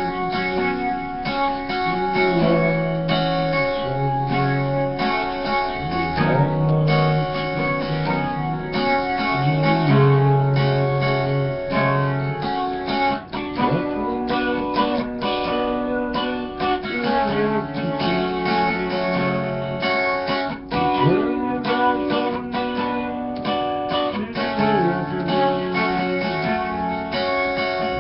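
Guitar music: a continuous piece with sustained pitched notes over changing lower notes.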